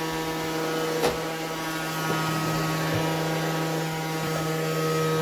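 Xiaomi Mijia Vacuum Mop 1C robot vacuum running with a steady, pitched motor hum, broken by a sharp knock about a second in and a few fainter knocks after. This is the unwanted noise the owner is complaining about.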